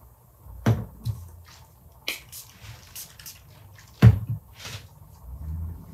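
3D-printed plastic crown parts being handled and set down on a workbench: a few scattered clicks and knocks, the loudest about four seconds in, with soft rustling between.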